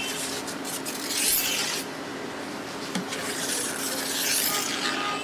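A blade drawn through a large sheet of pastry dough on the table, in two long rasping strokes, over a steady low hum.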